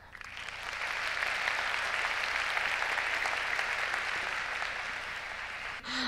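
Audience applauding, building up over the first second and then holding steady.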